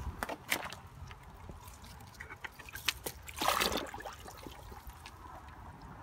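Water sloshing and trickling in a plastic tub as a potted shrub in its nursery pot is lowered into it, with a louder splashing stretch about three and a half seconds in.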